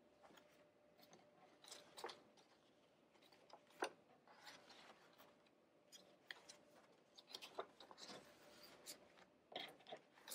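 Faint rustling and light taps of cardstock pennants being handled, slid along a string and set down on a table, with a sharper click about four seconds in.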